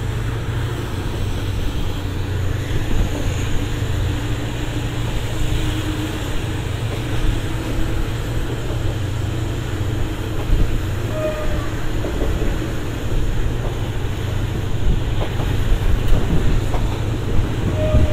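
Passenger train running through a station, heard from inside a carriage: a steady low rumble of wheels on rail, with a few sharp wheel clicks and the rumble growing a little louder near the end.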